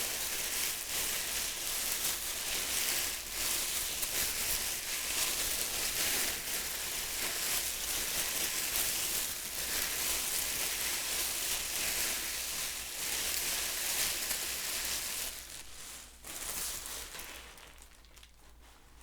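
A plastic bag crinkling and rustling without a break, dying away over the last few seconds.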